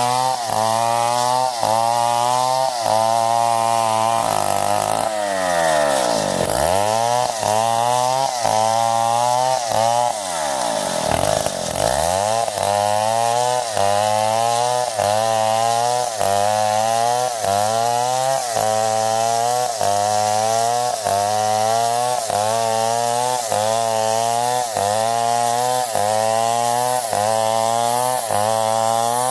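Stihl 070 two-stroke chainsaw running at high revs while cutting, its pitch dipping and recovering about once a second as the chain loads in the wood, with two deeper dips about six and eleven seconds in.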